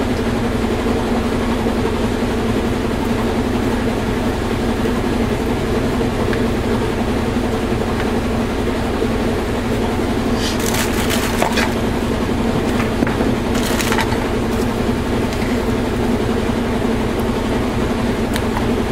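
A steady low machine hum, with short clattering knocks of plastic soap pitchers and utensils being handled about ten to eleven seconds in and again near fourteen seconds.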